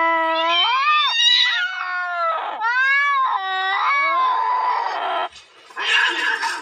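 Domestic cat yowling: long, drawn-out wavering howls that rise and fall in pitch, the threat call of a cat squaring up for a fight. After a brief gap near the end, a harsh, noisy sound with no clear pitch starts as two cats grapple.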